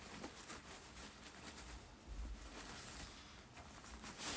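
Faint rustling and handling of packaging as a parcel is unwrapped, a little louder near the end.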